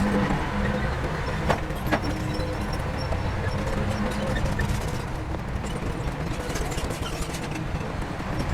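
Heavy diesel earthmoving machinery running steadily, with two sharp knocks about one and a half and two seconds in.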